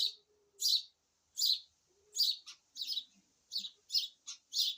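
Nestling birds in a birdhouse begging: a series of short, high, raspy chirps, about one every three-quarters of a second at first, then coming quicker in the second half.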